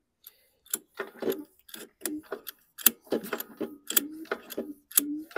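Small engine of a 2012 Toro Recycler push mower turned over slowly by hand, clicking and knocking about two to three times a second, many knocks with a short low squeak after them. The owner calls the sound definitely not normal and takes the engine for shot, perhaps from a loose connecting rod bearing that binds.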